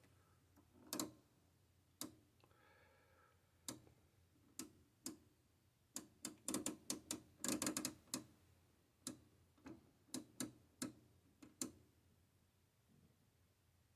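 Faint, sharp clicks at irregular intervals, with a quick run of them a little past halfway, as the Heathkit IO-102 oscilloscope's rotary range switches are clicked through their detents.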